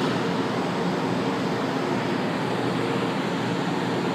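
Steady hum and rushing noise of a São Paulo Metro train standing at the platform, with faint steady tones running under it.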